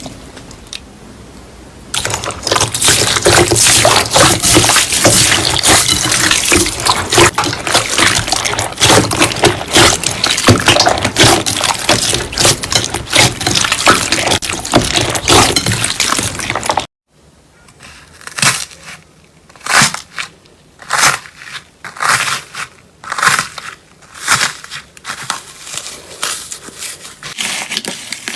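Slime being pressed and squished by hand: a dense run of crackling, sticky squelches that stops abruptly, then separate squishes about once a second.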